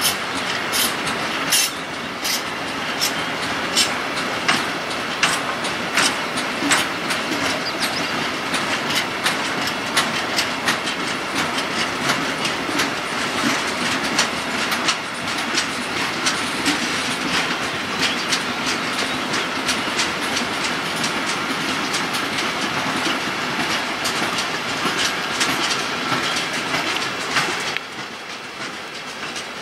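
Freight train of empty stake flat wagons rolling past, wheels clicking in a steady clickety-clack over the rail joints with a continuous rumble and rattle. The sound drops somewhat near the end.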